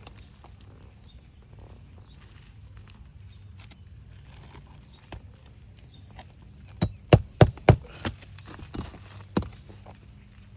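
Hammer driving roofing nails back into an asphalt shingle: a quick run of five sharp strikes, about three a second, then one more strike a second and a half later.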